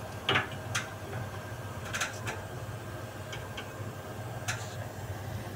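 Steady low machine hum with scattered light clicks and taps from hands handling the copper refrigerant pipe and brass service fittings of a ducted air conditioner.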